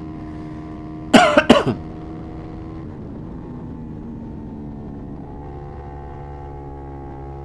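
KTM RC390 Cup's single-cylinder engine running steadily, its revs easing down slightly and then holding. About a second in, a short, loud double cough.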